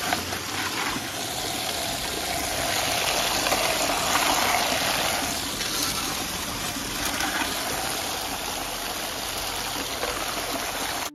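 Steady rush of running water from a small pump-fed recirculating gold sluice, with sloshing as wet gravel is scooped out of a bucket of muddy water.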